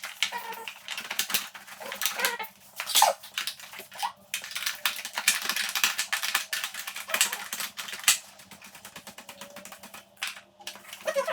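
Dense, irregular clicking and rattling of hand tools and loose parts being worked on a motorcycle, easing off for a couple of seconds about eight seconds in.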